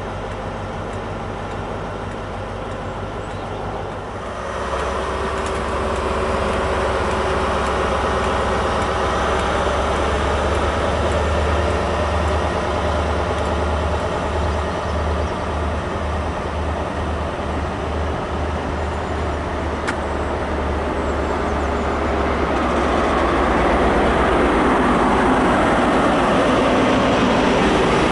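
A GWR InterCity 125 high-speed train passing close by. The Class 43 diesel power car's engine gives a deep steady drone that comes in about four seconds in, over the rumble of the coaches' wheels on the rails, which grows louder near the end.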